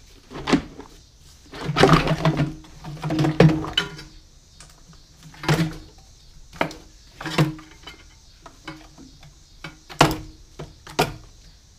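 Knocks, clunks and clattering of an intake manifold being worked loose and lifted out of a car's engine bay by hand. The knocks come irregularly, loudest in two busy spells about two and three and a half seconds in, with single sharp knocks later.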